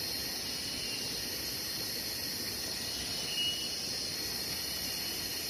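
Steady high-pitched drone of insects, with a short faint chirp a little past the middle.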